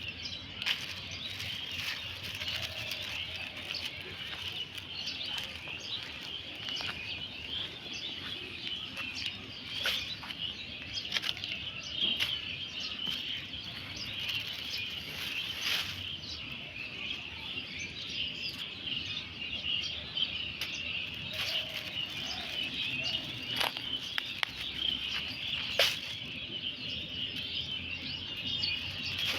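A dense chorus of small birds chirping without a break, with scattered sharp clicks and rustles over it, the loudest about 26 seconds in.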